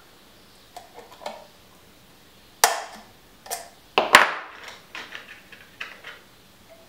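Metal tools and parts clicking and knocking as they are handled and set down on a workbench: a few sharp knocks, the loudest about two and a half and four seconds in, with lighter clicks between.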